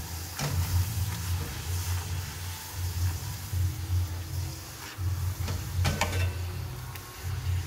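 Poori deep-frying in hot oil in a kadai, the oil sizzling as a slotted steel spoon presses the poori down to puff it. The spoon clinks sharply against the pan about half a second in and a few times around six seconds. A low, uneven hum pulses underneath.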